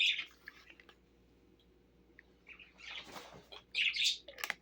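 Soft, irregular chewing of a slice of cold leftover pizza close to the microphone, with a couple of short clicks near the end.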